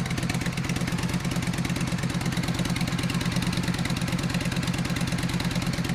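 Yamaha XVS 1300 V-twin idling steadily through an aftermarket two-into-one exhaust, an even, fast pulsing at about 88 dB measured 50 cm from the pipe.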